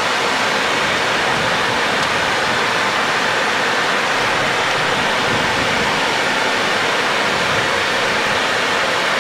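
Steady rushing airflow noise on the flight deck of a Boeing 737 on final approach in landing configuration, gear down and flaps at 30.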